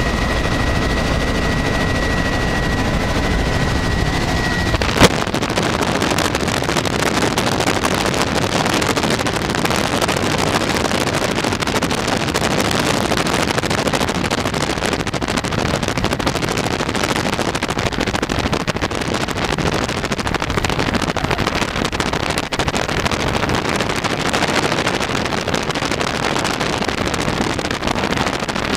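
Helicopter engine and rotor noise heard from inside the cabin, loud and steady with a fast flutter. A high steady whine runs for about the first five seconds and stops at a sharp click.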